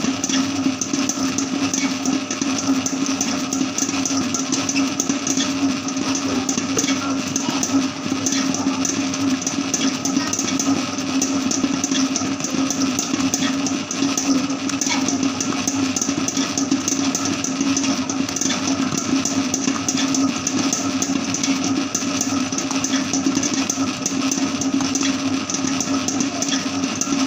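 Electric dough mixer running steadily, its hook kneading bread dough in a steel bowl: an even motor hum with the churn of the dough.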